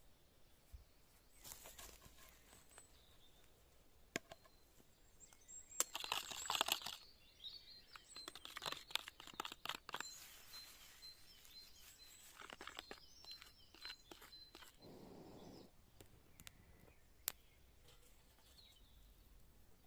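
Bursts of rustling, crinkling and crunching, with sharp clicks, from things being handled; the loudest burst is about six seconds in. A faint run of high, evenly repeated pips sounds through the middle.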